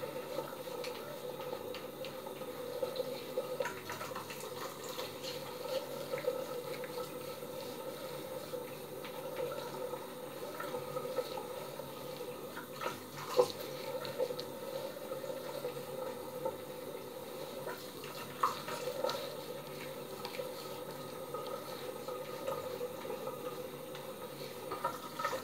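Three-bladed cartridge razor scraping in short strokes through long stubble on a gel-lathered scalp, over a steady background hiss, with a couple of sharper clicks partway through.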